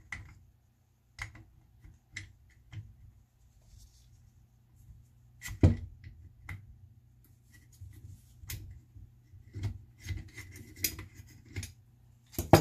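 Metal parts of a KWA LM4 gas-blowback airsoft rifle clicking and scraping as the bolt carrier and charging handle are fitted back into the upper receiver. Scattered light clicks, with a sharper knock about halfway through, a stretch of scraping, and another sharp knock near the end.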